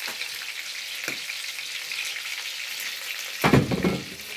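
Browned chicken pieces sizzling in a pan on the stove, a steady crackling hiss. A brief loud thump comes near the end.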